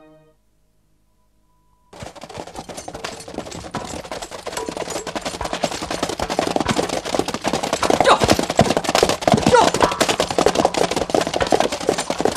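Hooves of several horses galloping hard over dry ground: a dense, rapid drumming that starts suddenly about two seconds in and grows louder.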